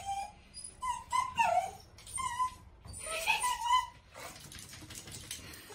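A dog whining and whimpering in short, high-pitched cries that come in three bunches over the first four seconds, then fainter whines.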